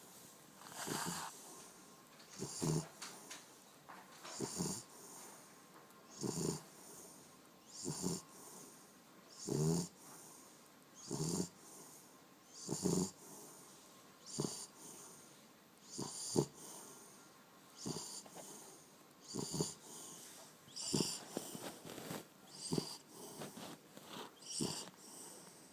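French bulldog snoring in its sleep: short snores in a steady rhythm, about one every second and a half, each with a high hissing edge on top of a low rattle.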